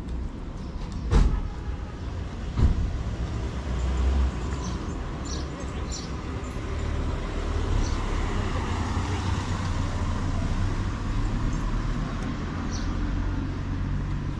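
Steady low road-traffic noise, with a vehicle passing that swells and fades in the middle, and two sharp knocks in the first three seconds.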